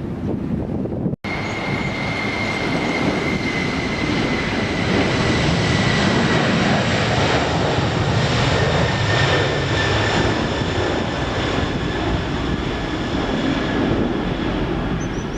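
Jet airliner engines running: a steady high whine that sinks slightly in pitch over a loud rushing roar, swelling toward the middle and easing near the end. The sound cuts out abruptly for an instant about a second in.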